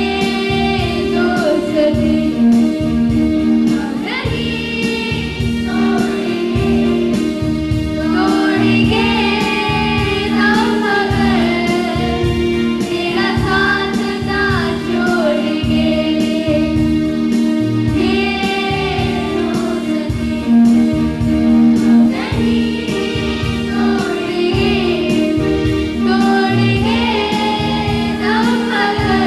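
A song with a female voice singing a melody over held chords and a steady drum beat.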